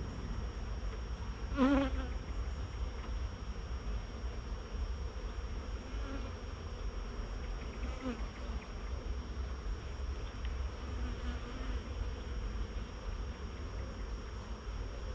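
Honeybees buzzing around an opened hive as frames are lifted out. About two seconds in, a single bee flies close by, its buzz loud for a moment with a wavering pitch; fainter passes follow, over a steady low rumble.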